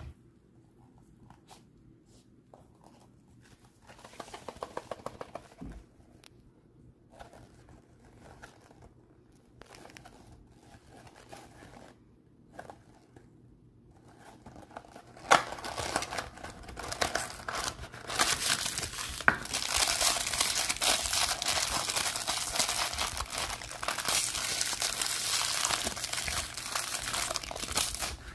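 Gloved hands opening a small cardboard Minecraft Mob Head Minis blind box: soft handling taps and rustles at first, then about halfway through a loud, continuous crinkling and tearing of the packaging that stops just before the end.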